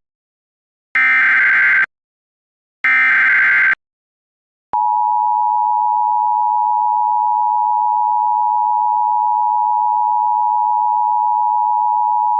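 Emergency Alert System signal: the end of the SAME digital header, heard as two full buzzy data bursts of about a second each after the tail of an earlier one. About 4.7 s in comes the steady two-tone EAS attention signal, a sustained electronic tone near 1 kHz.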